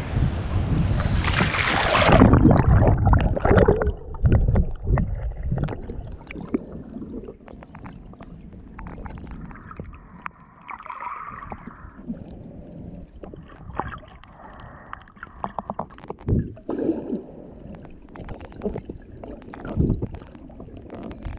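Water splashing and wind noise at the surface. About two seconds in, the camera goes under and the sound turns muffled: sloshing, gurgling, and scattered knocks and clicks of water moving around the camera housing.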